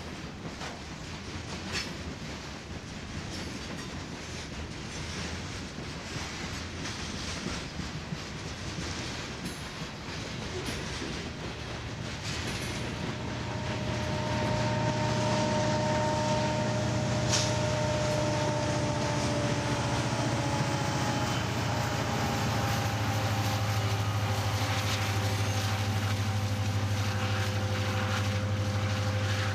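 Freight cars rolling past with wheel clicks and steady rail noise. About halfway through, a diesel locomotive comes up and passes, louder, with a low engine drone and a whine that slides slowly down in pitch as it goes by; it is plausibly the train's rear distributed-power unit.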